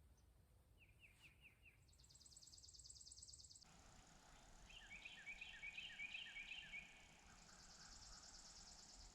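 Faint birdsong: a few quick chirps, then high, rapid trills and a run of short repeated notes from songbirds.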